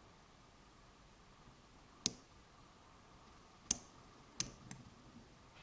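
Lock pick working the pin stack of a Mul-T-Lock seven-pin padlock, with four faint sharp clicks spread over a few seconds as pins are lifted and set.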